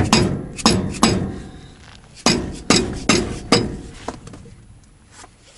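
A wooden board hammering the metal grease cap on a Dana 44 front hub, to knock off the stuck cap. There are two groups of about four sharp knocks with a short metallic ring, a second or so apart, then a couple of lighter knocks near the end.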